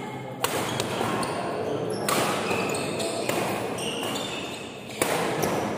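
Badminton rackets striking the shuttlecock in a doubles rally: three sharp hits, the second about a second and a half after the first and the third about three seconds later.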